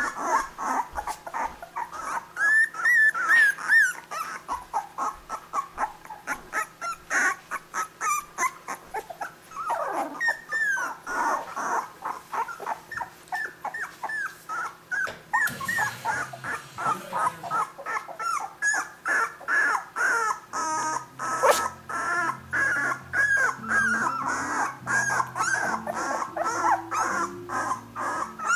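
Nova Scotia Duck Tolling Retriever puppies, about two and a half weeks old, whimpering and squeaking in short high cries that repeat about twice a second.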